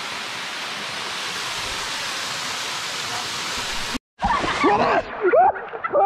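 Waterfall: a steady rush of falling water. It cuts off abruptly about four seconds in, and voices follow.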